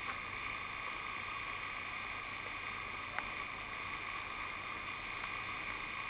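Steady hiss and hum with no speech, broken by a faint click just after the start and a sharper click about three seconds in.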